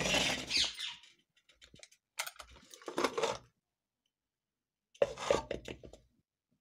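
Metal spoon scraping and clinking against a steel pot in three short bouts, each about a second long.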